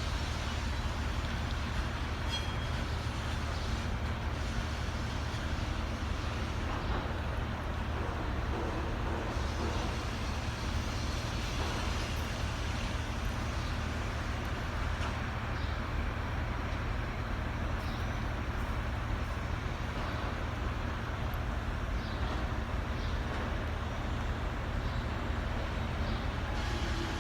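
Steady low hum and rumble of a rail yard, with a faint even noise over it and no distinct events.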